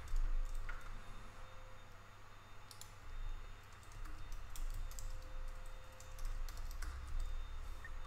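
Typing on a computer keyboard: short runs of key clicks with pauses between them, as an email address and then a password are typed in.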